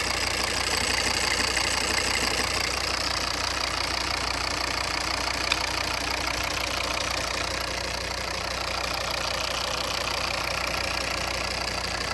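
Volvo V40 Cross Country D3 diesel engine running steadily with a knocking noise, the fault the owner is recording along with a vibration. A single sharp tick stands out about halfway through.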